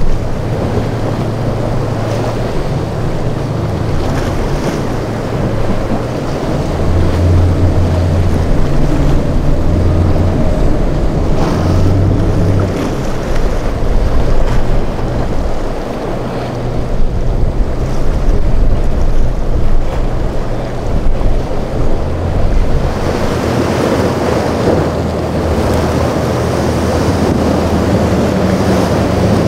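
Boat engines running over the noise of waves and surf at a rough inlet, with wind buffeting the microphone. The wash of water swells louder about three-quarters of the way through.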